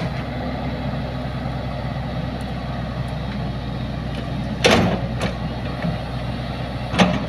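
Hitachi hydraulic excavator's diesel engine running steadily while the machine digs. A few sharp knocks come through over the engine: two about four and a half to five seconds in, and one near the end.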